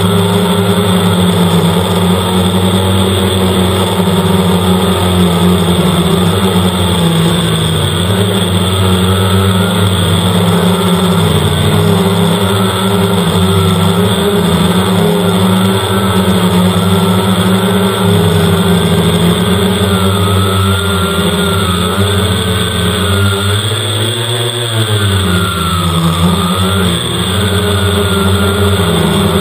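Quadcopter's electric motors and propellers whirring steadily, heard close from the onboard camera. The pitch wavers as the motors adjust speed, most clearly about four-fifths of the way through.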